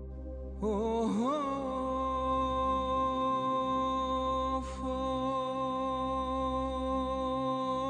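A voice singing one long held note in a slow Pontic Greek song. It slides up into the note about a second in and falls away at the end, over a steady ambient synthesizer drone.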